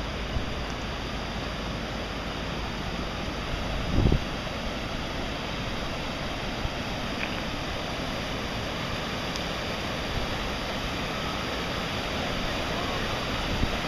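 Steady rush of floodwater, with a single low thump about four seconds in.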